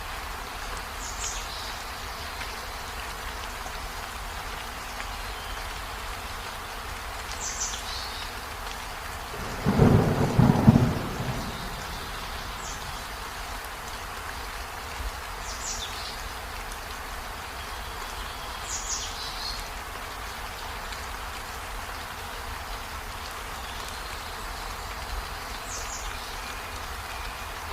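A steady outdoor hiss with a loud, low rumble lasting about two seconds, starting about ten seconds in. A short, high, falling chirp sounds every few seconds.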